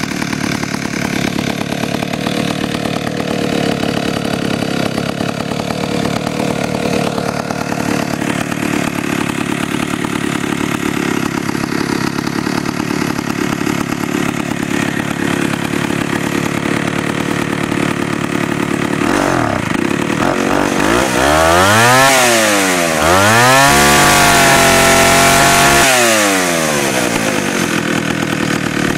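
Pioneer two-stroke chainsaw idling steadily. About two-thirds of the way through it is revved up once and let fall, then revved again and held at high speed for a few seconds before dropping back to idle.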